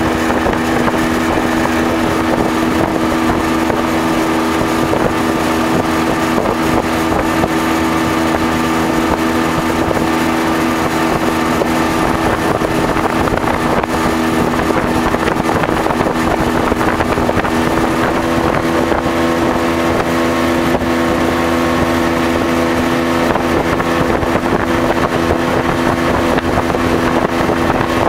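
Motorboat engine running steadily at speed, a constant drone over an even rushing noise.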